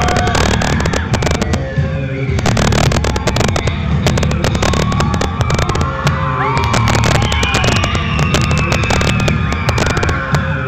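Loud music with a heavy bass played over a PA loudspeaker, with a constant crackle running through it.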